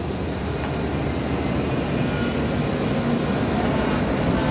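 Diesel-electric locomotive engine running with a steady rumble.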